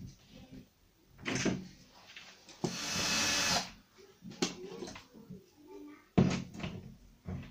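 Metal hollow wall anchors being set in a plasterboard stud wall with a Fischer plier-type setting tool: clicks and knocks of the tool and anchors at the wall, a scraping noise lasting about a second around three seconds in, and a sharp knock just after six seconds, the loudest.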